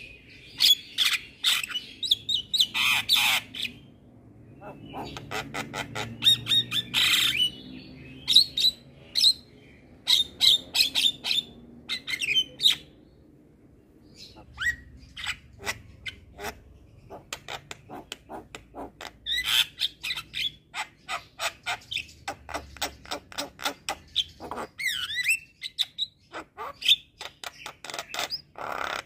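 Javan myna (jalak kebo) singing vigorously: a chattering string of harsh squawks, sharp clicking notes and short whistles, broken by a few pauses of a second or two.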